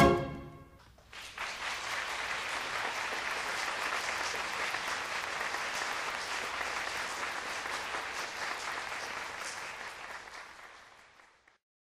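The last chord of the concert-band march dies away, then audience applause starts about a second in, holds steady and fades out near the end.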